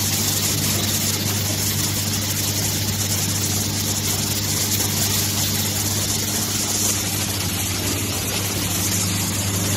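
Automatic soldering machine line with its vibratory parts-feeder bowl running: a steady machine hum with a high hiss over it.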